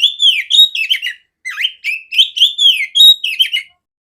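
Oriental magpie-robin (kacer) singing: a quick run of clear, loud whistled notes and sweeping chirps that stops shortly before the end.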